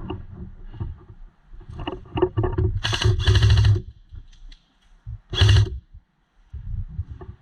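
Airsoft gun firing: a few sharp clicks, then short loud bursts of fire about three seconds in and again about five and a half seconds in.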